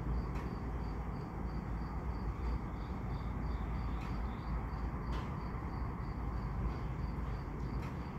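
Crickets chirping steadily, about three chirps a second, over a low, steady rumble, with a few sharp clicks now and then.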